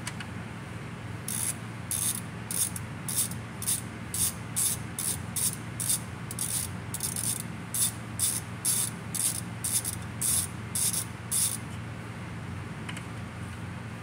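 Ratchet wrench clicking in a run of about twenty quick strokes, roughly two a second, starting about a second in and stopping a couple of seconds before the end, over a steady low hum.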